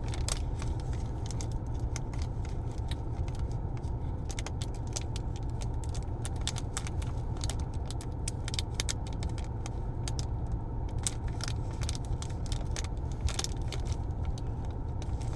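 Steady low hum of a stopped car's idling engine heard inside the cabin, with many small irregular clicks and rattles.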